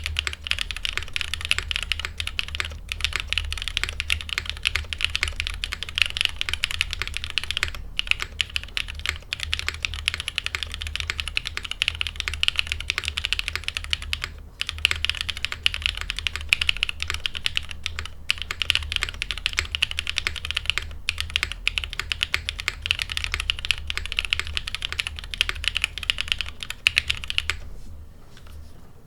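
Fast typing on a Frog TKL mechanical keyboard with an aluminium plate, lubed Black Cherry Pie linear switches and GMK keycaps. A dense run of keystrokes with a few short pauses, ending shortly before the close.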